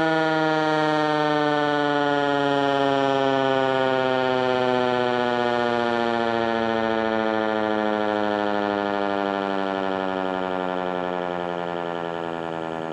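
American Signal Corporation T-121 outdoor warning siren winding down at the end of its Alert signal: one steady siren tone whose pitch sinks slowly and evenly while it gradually grows quieter.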